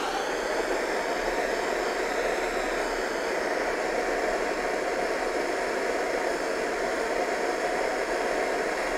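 Gas torch flame burning with a steady, even hiss, heating a magnet.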